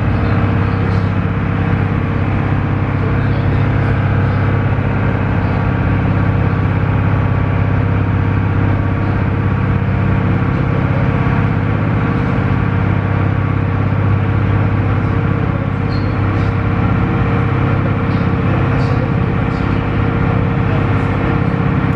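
Wakato Ferry's engine running steadily as the boat crosses, a deep even drone heard on board.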